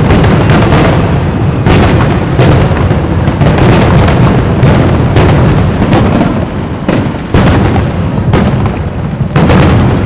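Aerial fireworks shells bursting in a rapid barrage: loud booms about once or twice a second over a continuous low rumble of overlapping explosions and their echoes.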